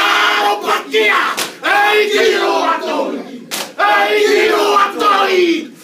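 A group of men shouting a Samoan war-dance chant in unison, in short, loud, rhythmic phrases with brief breaks between them.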